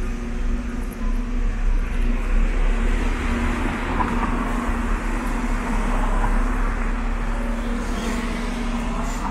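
Road traffic: motor vehicles running and passing, a steady low rumble with an engine hum held throughout.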